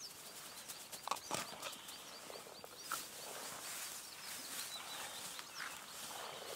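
A bird calls a short, high note over and over, about four times a second, thinning out toward the end. Over it come light rustles of brush and a few sharp clicks as the shrubs are handled.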